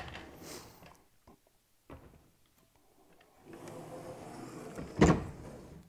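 A large wooden crate being slid across a table, with a scraping rub for about a second and a half, then one loud wooden knock about five seconds in as it is set in place. A few light clicks come earlier.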